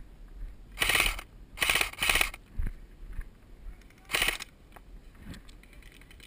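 Airsoft gun firing four short full-auto bursts, three in quick succession and a fourth about two seconds later, each a rapid rattle of shots.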